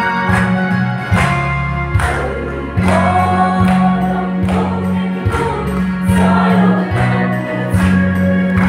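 Mixed church choir of women and men singing a hymn in parts, over a steady beat of strokes about one every 0.8 seconds.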